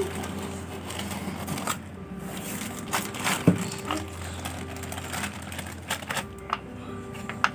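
Plastic bag crinkling and rustling as small turned wooden toy kitchen pots are pulled out and handled, with light wooden clicks and knocks. A sharp knock about three and a half seconds in is the loudest sound.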